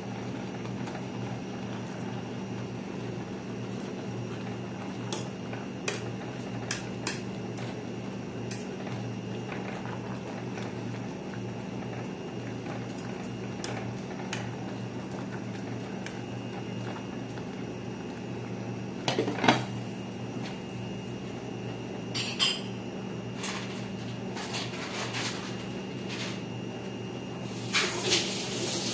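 A metal fork clinking and scraping against a stainless steel pot while stirring squash blossoms, with a louder knock about two-thirds through, over a steady low hum. Near the end a glass pot lid clatters onto the pot.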